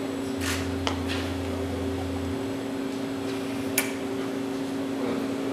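Steady machine hum holding two pitches, with a few brief soft clicks and rustles over it.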